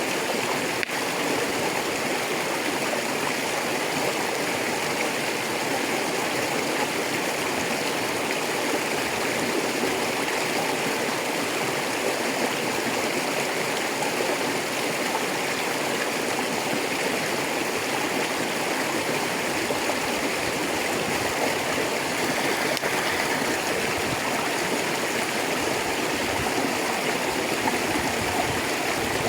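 A rocky river rushing and gurgling over stones in a steady, unbroken flow.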